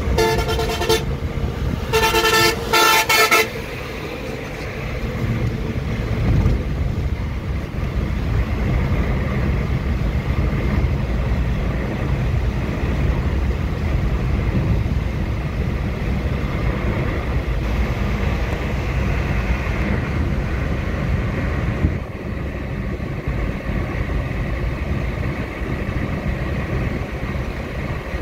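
Car horn sounding three times in the first few seconds: one blast of about a second, then two short ones in quick succession. After that comes the steady low rumble of engine and tyre noise heard inside a car cruising on an expressway.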